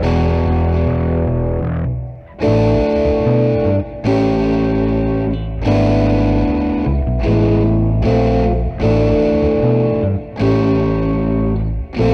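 Background music: distorted electric guitar playing held chords that change about every one and a half seconds, each change marked by a short break.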